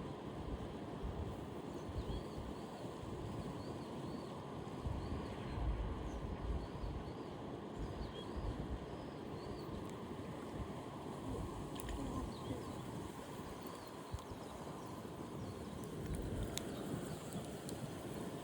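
Steady rushing noise of flowing river water with wind buffeting the microphone in low gusts. For the first several seconds a small bird calls in a quick repeated series of short chirps, and a couple of light clicks come near the end.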